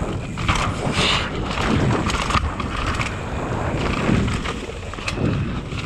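Downhill mountain bike ridden fast down a rough trail: wind rushes over the helmet-camera microphone and tyres run over rough ground, with irregular knocks and clatter from the bike.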